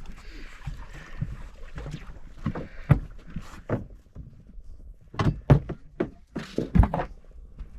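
A run of irregular sharp knocks and thuds on a fishing boat, over a low rumble. The loudest comes about three seconds in, and a cluster of four or five follows between five and seven seconds.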